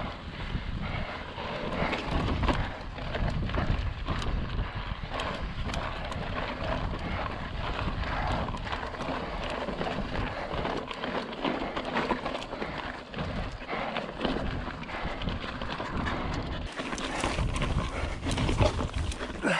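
Hardtail mountain bike ridden uphill over slickrock and loose stones: tyres crunching and the bike rattling with many small, irregular knocks.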